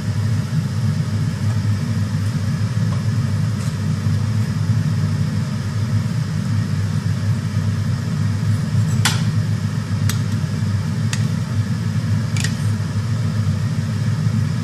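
A pot of lamb boiling on the stove with a steady low rumble. A few sharp clicks come about nine to twelve seconds in.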